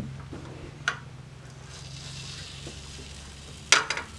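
Pancake batter sizzling on a hot griddle as it is squeezed out of a bottle. There is a sharp click about a second in and a louder cluster of clicks near the end.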